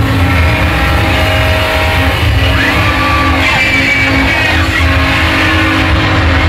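Theme-park ride soundtrack, played loud: held music notes over a continuous deep rumble, the staged earthquake effect of the Earthquake ride.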